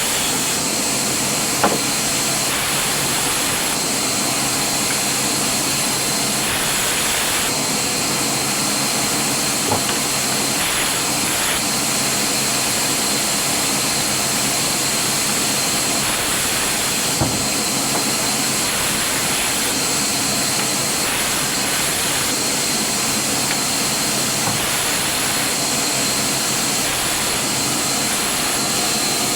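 Steady rushing, hissing machine noise at an even level, with a few faint knocks.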